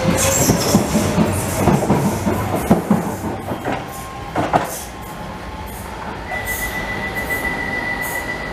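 Docklands Light Railway B2007-stock train pulling out and running past, its wheels clattering and knocking over the rail joints, with the sound falling away after about five seconds. In the second half a steady high-pitched wheel squeal from the rails holds.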